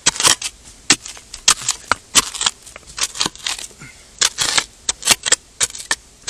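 Small metal spade blade chopping and scraping into hard-packed, gravelly riverbed mud: a quick, uneven run of short gritty strikes, about two or three a second.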